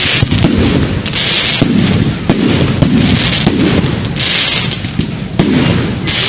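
Fireworks display going off continuously: a run of bangs over a low rumble, with bursts of hissing about every second and a half.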